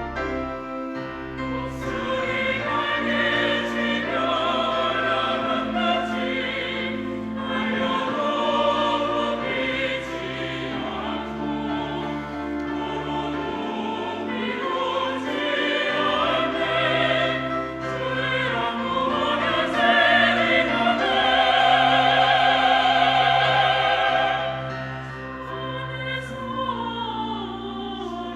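Church choir singing an anthem with instrumental accompaniment, building to a loud sustained chord a little after the middle, then softening near the end.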